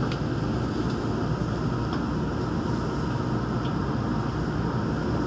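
Interior running noise of a Daegu Metro Line 3 rubber-tyred straddle-beam monorail train as it moves off from a station: a steady low rumble and hiss, with a few faint light ticks.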